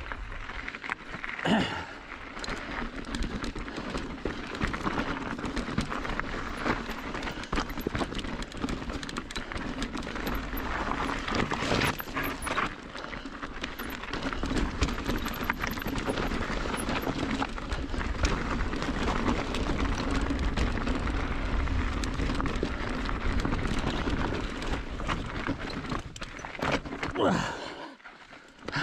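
Mountain bike riding on a rocky dirt trail: tyres rolling and crunching over dirt and rock, with the rider breathing hard on the climb. Two louder knocks, about a second in and near the end.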